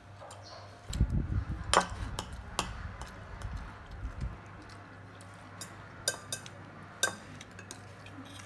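Spoons clinking against ceramic bowls and dishes during a meal: a handful of separate sharp clinks, with a low rumbling bump in the first half.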